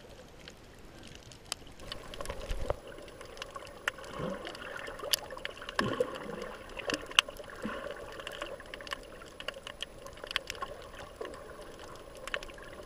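Underwater sound picked up by a submerged camera: faint gurgling and sloshing water with many scattered sharp clicks and crackles.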